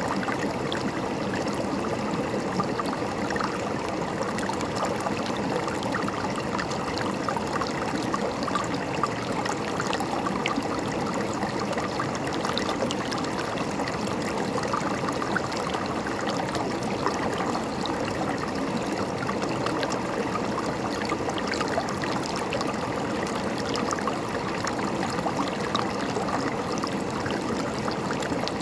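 River water flowing steadily over rocks, a constant rushing and gurgling with many small splashes.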